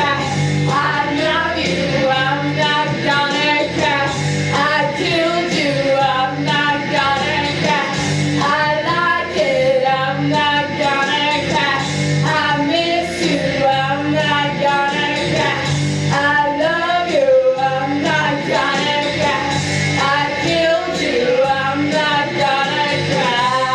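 A woman singing into a microphone over amplified accompaniment, with a low bass pattern repeating about every two seconds.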